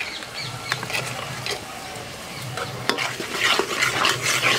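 A long metal ladle stirring and scraping a thick onion-tomato masala paste frying in oil in a large metal pot, with a few sharp clinks of the ladle against the pot. The stirring turns busier and louder about three seconds in.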